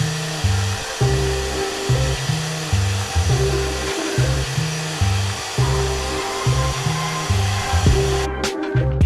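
Steady hiss of a Graco Magnum X7 airless paint sprayer spraying paint, cutting off sharply about eight seconds in, under background music with a steady bassline.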